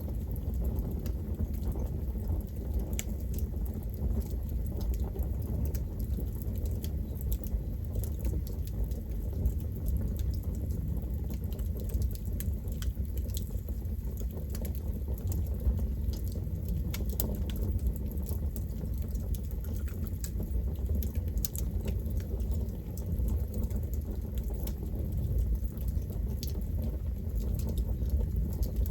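Campfire burning: a steady low rush of flames with many small, sharp crackles and pops of burning wood at irregular intervals.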